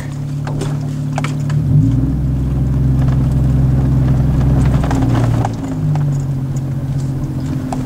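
Car engine and road noise heard from inside the cabin while driving. About two seconds in the engine note drops deeper and gets louder, then rises back again around five and a half seconds.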